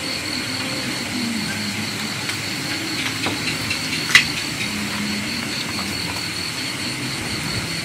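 Night insects trilling steadily at one high pitch over a steady hiss and low hum, with a single sharp clink of tableware about four seconds in.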